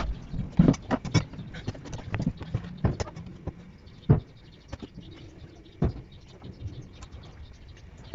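Scattered, irregular clicks and knocks from handling a powered speaker's amplifier board and its wire leads while plugging connectors back in.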